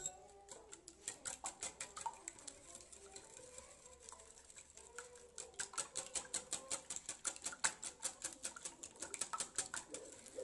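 Wire balloon whisk beating a runny egg-and-yogurt batter by hand in a ceramic bowl: rapid, rhythmic clicking of the wires against the bowl, several strokes a second, getting louder about halfway through.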